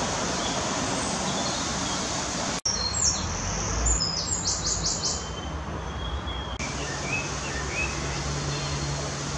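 Small birds singing in woodland, with quick runs of high chirps a few seconds in and a few more near the end, over a steady background of outdoor ambient noise. The sound changes abruptly at a couple of splices.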